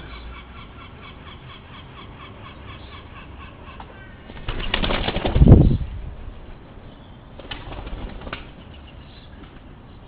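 A wood pigeon's wings clatter loudly as it takes off in a rush of rapid wingbeats about four and a half seconds in, followed some three seconds later by a shorter, quieter flutter of wings. Faint, rapidly repeated bird calls sound in the background before the take-off.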